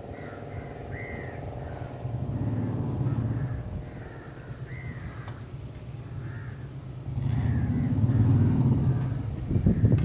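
Vehicles passing twice, as low rumbles that swell and fade, with crows cawing every so often.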